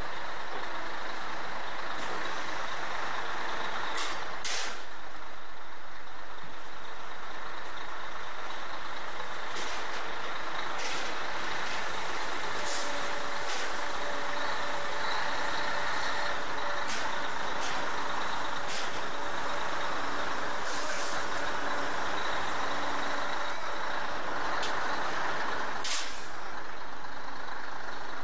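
Steady mechanical rushing noise with a few sharp clicks scattered through it.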